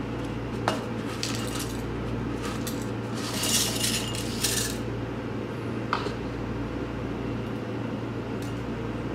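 Microwave oven running with a steady low hum. A few sharp clinks of dishware and two short crackly rustles sound over it.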